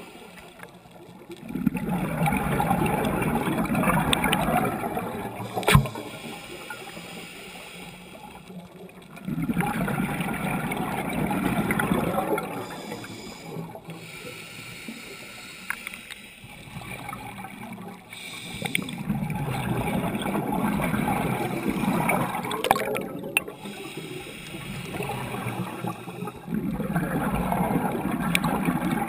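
Scuba diver breathing through a regulator underwater: four long exhalations, each a rush of bubbles lasting about three to four seconds, with quieter inhalations between. A single sharp click about six seconds in.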